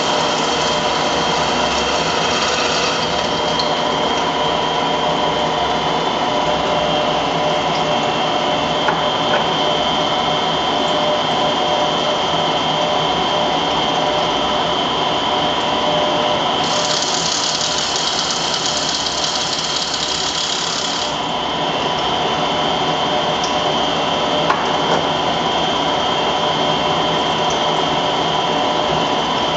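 Small turret lathe running while it machines a model diesel engine's crankcase: a steady machine hum with several held tones over a noisy cutting hiss. A brighter, louder hiss comes in for about four seconds past the middle, with a few faint clicks.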